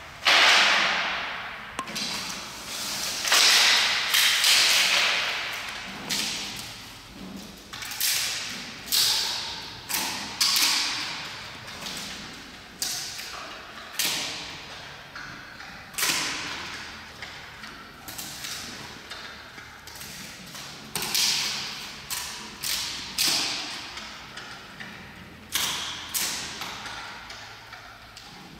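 Giant panda eating bamboo: sharp cracks and crunches as it bites and snaps the stalks, repeating every second or two, each fading quickly.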